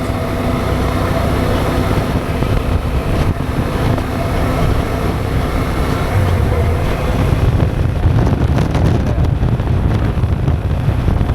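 Wind rushing over the microphone of a moving motorcycle, with the engine's steady drone underneath. The low wind rumble and buffeting grow heavier about halfway through.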